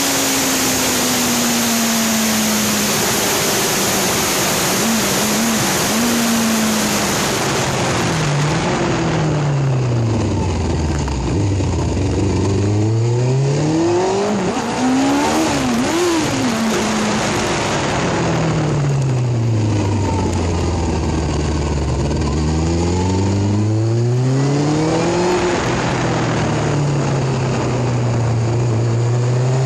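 Motorbike engine under way, at first largely buried under loud wind rush on the microphone. Then the engine note falls as it slows and climbs again as it pulls away, twice over, with short rev changes in between.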